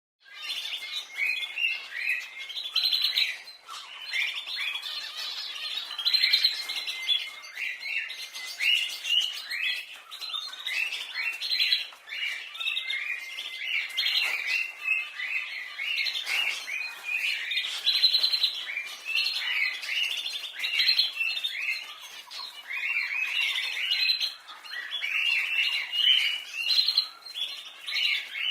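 Canaries chirping and trilling continuously, several birds' calls overlapping in quick, high-pitched phrases.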